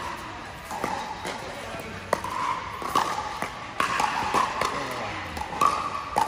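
Pickleball rally: paddles striking the hard plastic ball in a series of sharp pops, about seven hits spaced roughly a second apart.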